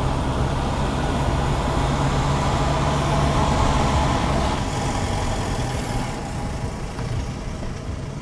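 Car engine and tyre noise heard from inside the car as it rolls slowly toward the ferry's loading ramp: a steady low hum under a broad road-noise hiss, easing off a little near the end.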